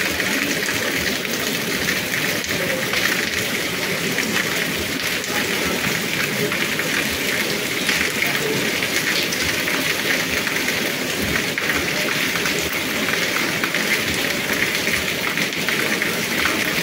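Steady rain falling on a paved street: an even hiss of many drops pattering on wet stone paving.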